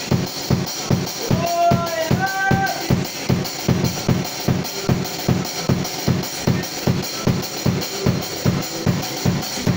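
Drum kit playing a steady, even beat of bass drum and snare, about three hits a second. A brief two-note pitched sound rides over it about a second and a half in.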